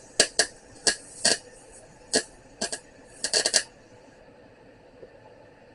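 MIG welder arc crackling in short bursts while a nut is tacked onto a broken thermostat housing bolt, about eight bursts in the first four seconds, then it stops.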